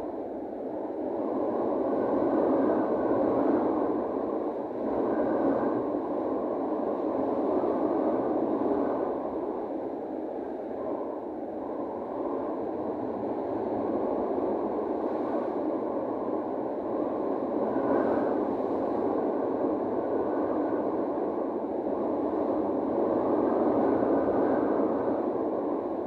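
Wind rushing steadily across a cruise ship's deck at sea, swelling and easing every few seconds.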